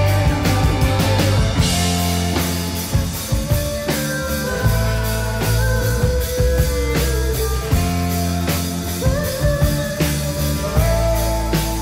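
Live rock band playing a song: a drum kit keeps a steady beat under electric guitar and bass, while a bowed viola carries long held melody notes.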